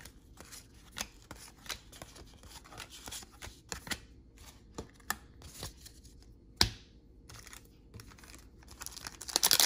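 1992 SkyBox basketball trading cards being handled and flipped through one after another: a string of soft flicks and taps, with one sharper snap about two-thirds of the way in. A denser rustle builds near the end.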